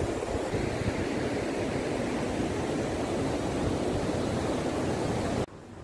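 Steady rushing of river water pouring through a concrete weir, mixed with wind on the microphone; it cuts off abruptly near the end.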